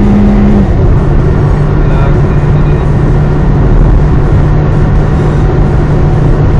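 Toyota Vios driving, heard from inside the car: loud, steady road and engine noise with a low hum that steps down in pitch about a second in.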